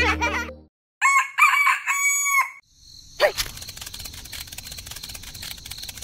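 A rooster crows once, a cock-a-doodle-doo about a second in. Then a click, and a small electric motor starts and runs steadily.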